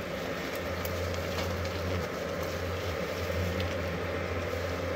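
Steady low buzzing hum of many wasps flying around their opened ground nest, with a few faint ticks.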